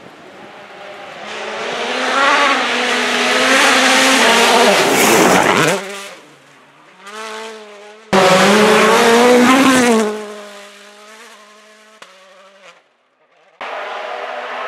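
Rally cars at full speed on a gravel forest stage, engines revving high as each car approaches, passes close and fades away. There are two loud passes, the first building over the opening seconds and the second starting abruptly about eight seconds in, and a third car's engine cuts in near the end.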